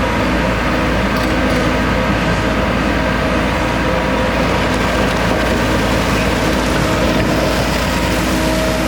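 Hyundai 130 SMART hydraulic crawler excavator's diesel engine and hydraulics running steadily at working speed, a continuous mechanical drone with several steady tones.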